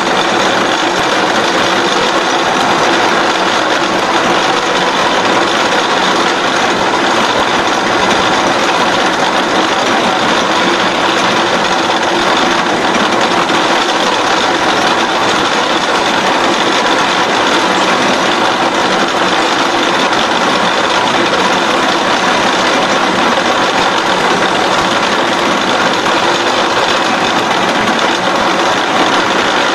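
SXA55 CNC bevelling machine's milling cutter cutting a bevel along the edge of a steel H-beam: a loud, steady machining noise with a constant hum running through it.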